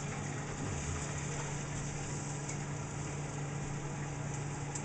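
Steady low hum of a kitchen appliance motor running, with an even faint hiss over it and no change throughout.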